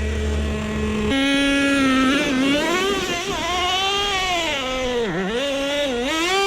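Traxxas T-Maxx nitro RC truck's small glow-fuel engine running under throttle. It holds a steady note for about a second, then steps up and rises and falls in pitch as it drives, dipping sharply twice near the end. The driver takes the dips for the engine bogging down from needing a little more fuel.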